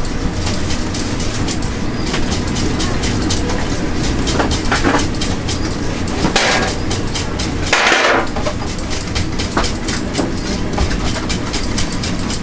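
Street-food cooking sounds: a steady busy clatter of many quick clicks and knocks, with two short hisses about six and a half and eight seconds in.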